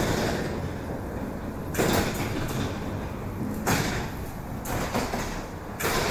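EP2D electric train running along the line, with a short swish repeating regularly about every two seconds over the steady running noise.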